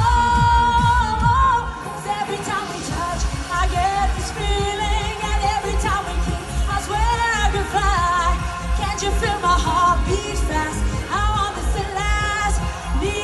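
Live Eurodance pop music: a sung melody over a steady kick-drum beat. The beat drops out briefly about two seconds in, then comes back.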